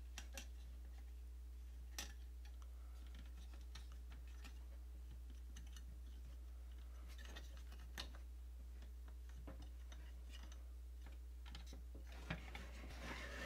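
Faint, scattered clicks and taps from the jointed parts of an oversized Scorn transformable action figure as its arms are adjusted by hand, over a steady low hum.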